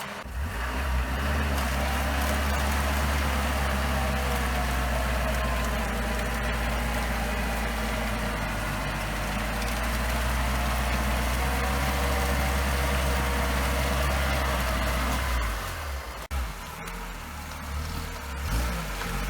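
Off-road vehicle's engine running steadily. About fifteen seconds in the sound changes and turns uneven.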